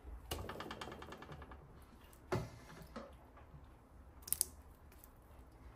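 Kitchen handling sounds: a rapid run of light clicks, about nine a second for over a second, then a single knock and, near the end, a sharp double click.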